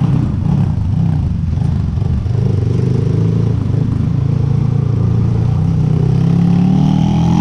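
Motorcycle engine running steadily while riding, its pitch climbing gently in the last couple of seconds as it speeds up.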